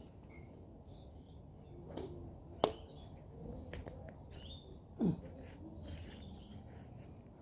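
Badminton racket strings hitting a shuttlecock: a lighter hit about two seconds in, then a sharp crack half a second later. A short falling sound about five seconds in, with faint bird chirps in the background.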